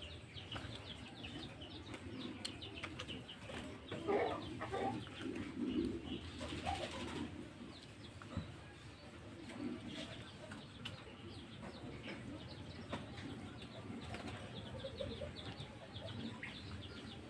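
Birds chirping and cooing, with scattered soft taps of a knife on a wooden cutting board as raw chicken is sliced.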